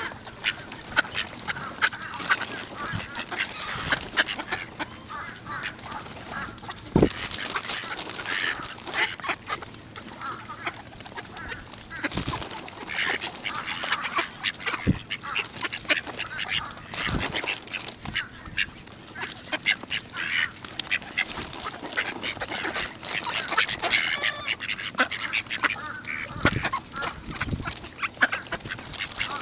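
A crowd of mallard ducks quacking and chattering continuously at close range while feeding, with many sharp clicks and taps mixed in.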